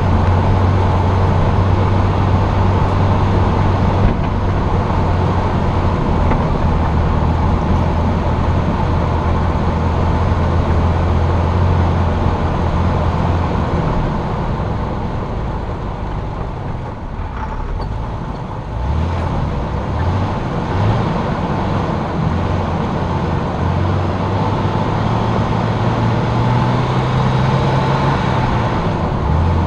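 Jeep engine running as it climbs a mountain road, heard from the hood over steady tyre and road noise. The engine note holds steady for the first half, drops away past the middle, then rises in pitch again, twice near the end.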